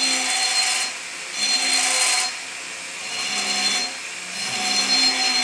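Right-angle porting tool with a carbide burr cutting the roof of a two-stroke cylinder's transfer port: the high-speed motor whines steadily while the burr hisses in about four light, smooth sweeps, each roughly a second long. The cut runs like easy paintbrush strokes, without the jumping and chatter of a burr held at the wrong angle.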